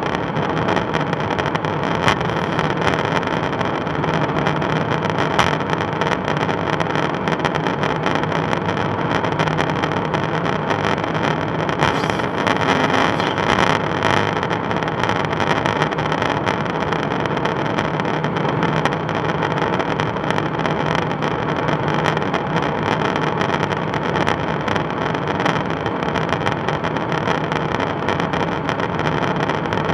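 Steady in-flight noise of a KC-135 Stratotanker heard inside the boom operator's pod: rushing airflow over the fuselage and a continuous engine drone. It swells a little for a couple of seconds about twelve seconds in.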